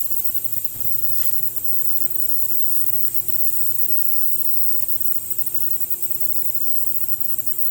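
Ultrasonic cleaner running: a steady hum with a constant high hiss, and a faint brief noise about a second in.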